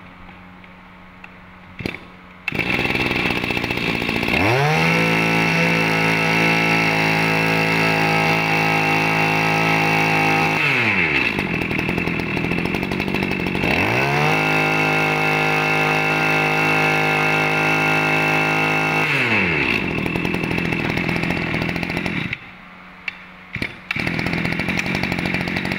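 Shindaiwa 23cc two-stroke brush cutter engine catching about two and a half seconds in. It is revved up to full speed and held, dropped back to idle, revved and held again, then shut off near the end.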